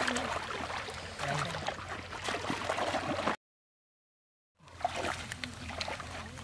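Shallow river water sloshing and splashing around legs and hands, with the wet crackle of water hyacinth clumps being pulled apart by hand. The sound cuts out completely for about a second in the middle, then comes back.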